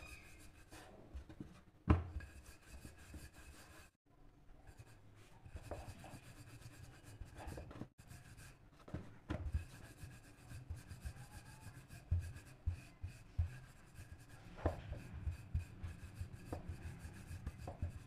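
Rolling pin rolling out dough on a rolling board: a faint, continuous back-and-forth rubbing, with a few light knocks, the sharpest about two seconds in.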